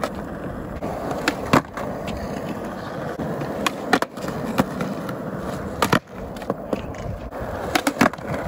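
Skateboard deck and wheels clacking against a concrete ledge as the board is popped and set down on it: repeated sharp clacks at irregular intervals over a steady rushing noise.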